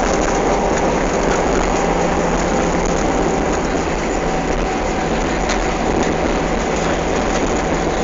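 Steady cabin noise of a jet airliner rolling on the ground after landing: a constant rumble and hiss of engines and wheels, with a few faint steady tones underneath.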